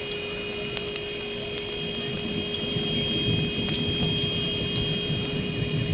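Steady outdoor background: a wavering low rumble with a constant mechanical hum, growing a little louder about two seconds in.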